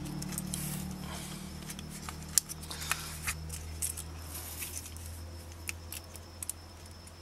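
Hands handling the plastic goggle housing and its circuit board: a short rustle of foam padding, then scattered small clicks of plastic parts as the main controller board is worked free.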